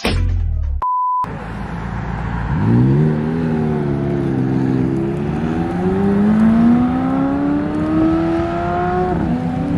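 A short steady electronic tone about a second in, then a McLaren 765LT's twin-turbo V8 pulling away. The engine pitch rises as the car sets off, holds, then climbs steadily for several seconds under acceleration before dropping at an upshift near the end.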